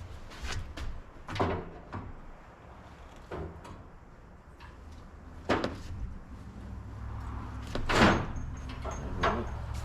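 Irregular knocks and clunks, about seven in all with the loudest about eight seconds in, as the metal top bow is worked into its socket brackets on a 1952 M38A1 Jeep body.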